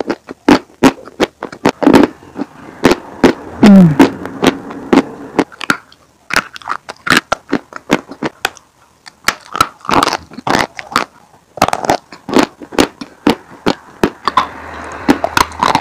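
Close-miked chewing of dry sawn chalk: a dense run of sharp crunches and cracks, broken by short pauses.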